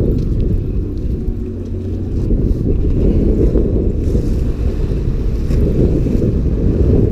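Strong wind buffeting the action camera's microphone, a loud, steady low rumble.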